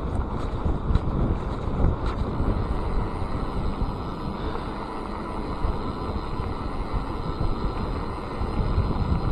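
Wind buffeting the microphone over the steady rumble of a Cube Stereo 150 SL mountain bike's tyres rolling fast along a dirt and gravel track. A few sharp clicks of the bike rattling come in the first two seconds.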